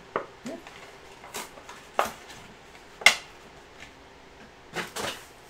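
Trading card packs and boxes being handled on a tabletop: scattered sharp clicks and knocks, the loudest about three seconds in and two more close together near the end.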